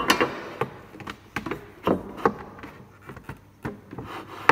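Steel carpenter's square being set and shifted against pine boards: a string of light, irregular knocks and short scrapes of metal on wood.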